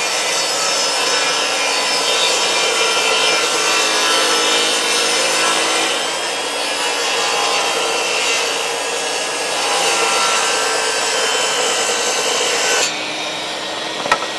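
Electric table saw ripping through a wooden board, under heavy load while running off a portable battery power station. About 13 seconds in, the cut finishes and the blade spins on freely, with a sharp click shortly before the end.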